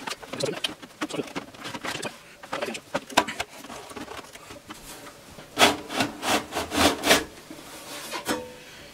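Top cover of an Advantest R6581T bench multimeter being worked loose and slid off its case: rubbing and scraping with scattered clicks, then a run of louder knocks and scrapes about two-thirds of the way through.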